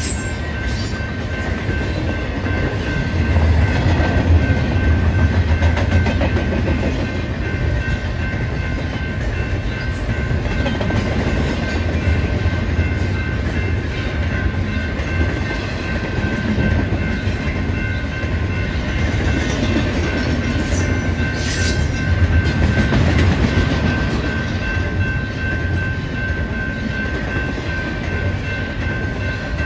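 Double-stack intermodal container cars of a BNSF freight train rolling past: a steady low rumble of steel wheels on rail with clickety-clack and a few sharp clanks about twenty seconds in. A steady high tone sounds above the rumble.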